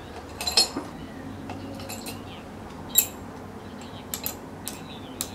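Steel rod clinking against the crucible of a small electric metal-melting furnace as it is worked in and out: several sharp, irregular metallic clinks, the loudest about three seconds in and a quick cluster near four to five seconds.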